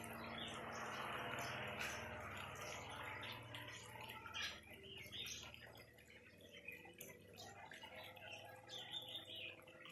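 Faint outdoor ambience: small birds chirping now and then over a low wash of background noise that thins out about halfway through.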